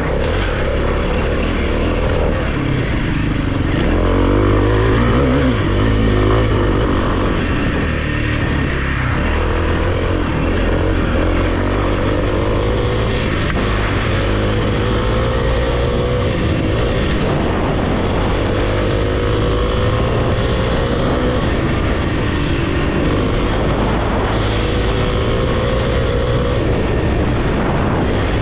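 Kawasaki KLX300's single-cylinder four-stroke engine running under load on a trail ride, its revs rising and falling again and again with throttle and gear changes.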